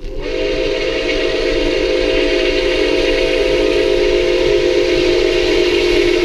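Nickel Plate Road 765's chime steam whistle opens with a brief rise in pitch and holds one long, steady blast of several notes at once, over the noise of the moving train.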